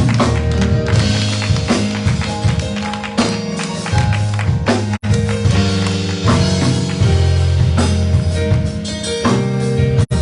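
Instrumental gospel worship music with drums and a strong, steady bass and no singing. The sound cuts out for an instant about five seconds in and again near the end.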